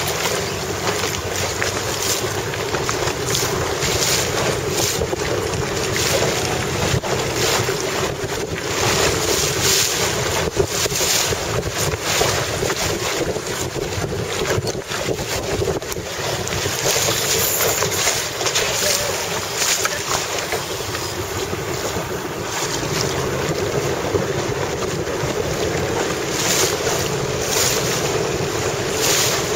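Wind buffeting the microphone in gusts over rushing, splashing water from a boat moving through choppy water.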